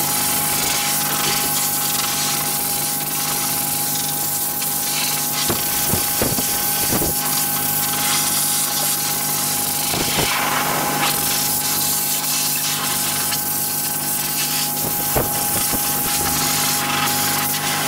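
Hose-fed dog grooming blow dryer running steadily, blowing a small dog's wet coat dry: a constant rush of air over a steady motor whine.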